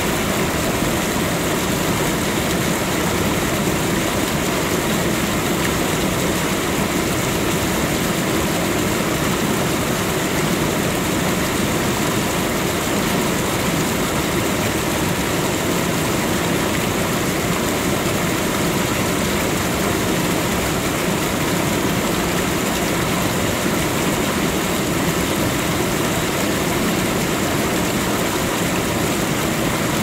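Waterfall: a steady, dense rush of falling water, unchanging throughout.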